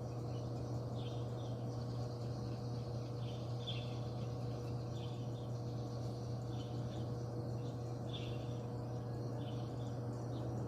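A steady low mechanical hum with a fainter constant tone above it, the abnormal noise reported from a parking space that is disturbing residents. Faint high chirps come and go about once a second over it.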